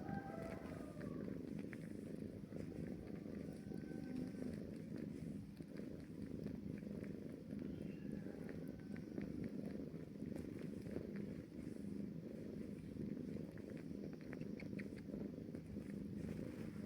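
Kitten purring steadily, a continuous low rumble.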